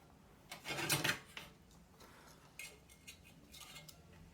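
Scraping and rubbing handling noises, with a burst about a second in and fainter light scrapes and taps later, as a plastic case fan is shifted into position against a PC case.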